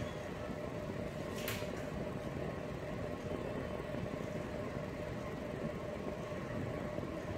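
Steady background hum and room noise with a faint constant tone, and a single brief click about a second and a half in.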